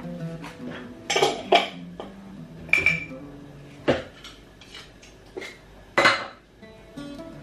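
Metal kitchen utensils and cookware clinking and clattering: about six sharp, separate knocks with brief ringing, the loudest a pair just after a second in and another at about six seconds.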